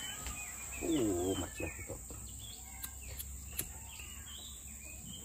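Small birds chirping and insects in the background, with a short burst of voice about a second in and three light clicks a little after the middle.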